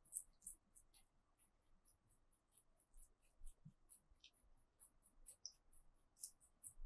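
Lop-eared rabbits chewing leafy greens: faint, crisp crunching at a few bites a second.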